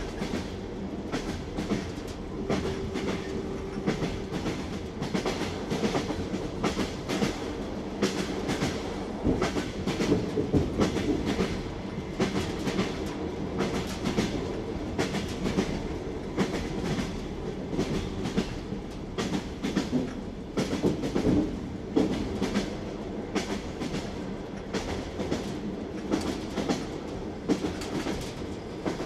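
Train wheels clattering over rail joints in a steady clickety-clack, over the continuous rumble of the moving train.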